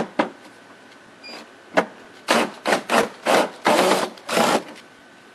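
Socket wrench ratcheting as a 10 mm bolt inside a truck's plastic fender liner is worked loose: a few sharp clicks, then a quick run of about seven short ratcheting strokes in the second half.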